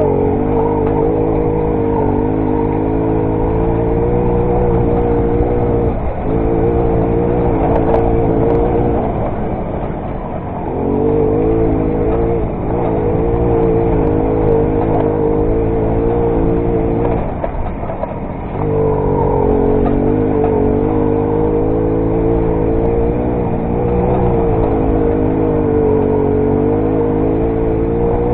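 Derbi Variant moped's two-stroke engine running under throttle on a trail. Three times the engine note drops as the throttle is eased off, then picks up again.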